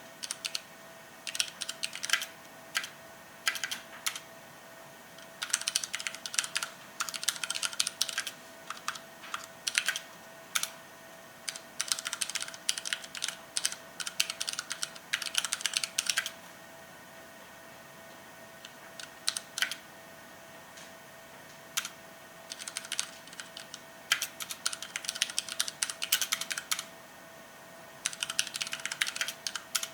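Typing on a TEX Yoda TrackPoint mechanical keyboard with linear Cherry MX Red switches. Quick runs of keystrokes come with short pauses between them, and about halfway through there is a lull with only a few single strokes.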